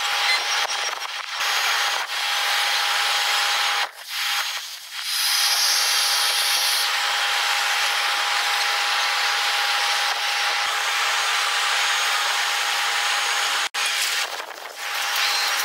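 Jet airliner engine noise on the runway, sped up fourfold, so it sounds as a high, even rushing hiss with a steady whine. It breaks off briefly about four seconds in and again near the end.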